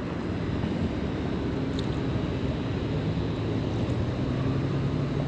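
A distant engine hums steadily over a wash of outdoor noise, the hum getting stronger in the second half.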